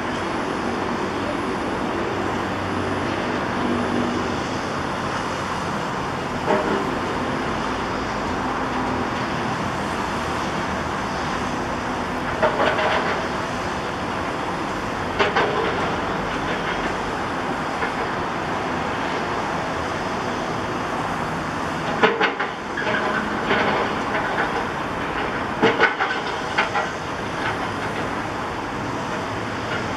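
Kobelco SK200 hydraulic excavator running steadily, with sharp clanks and knocks now and then, most of them bunched in the last third, as its bucket pushes a concrete pile into the ground.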